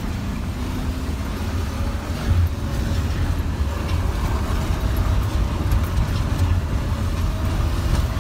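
Pickup truck's engine running steadily under way, heard from inside the cab as a deep, even drone with small swells.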